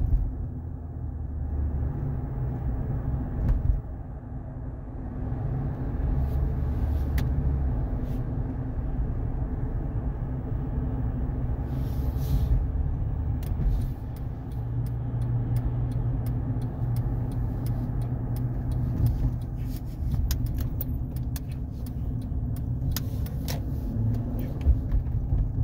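Road and engine noise of a moving car heard from inside the cabin: a steady low rumble. Through the second half, many irregular light clicks and ticks sound over it.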